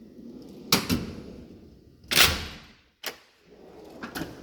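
Steel toolbox drawers being shut and pulled open: a sharp metallic clack about a second in, a louder sliding clunk about two seconds in, then lighter clicks near the end.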